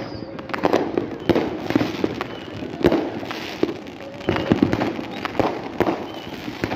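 Fireworks going off: an irregular string of sharp bangs and pops, about one or two a second, some louder than others.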